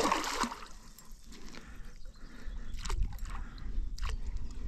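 Hooked tench splashing and thrashing at the surface, one loud splash at the start, then two brief sharp sounds about three and four seconds in.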